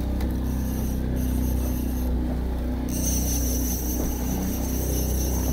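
Boat motor running steadily at trolling speed, a low even drone over the noise of wind and choppy water. A thin high whine joins about three seconds in.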